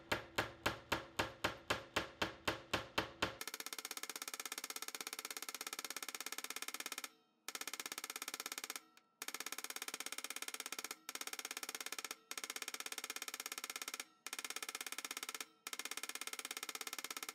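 Ball-peen end of a planishing hammer striking a metal blank on a steel block, about four sharp blows a second. After about three and a half seconds the blows turn into a fast, sped-up rattle, broken by several short pauses.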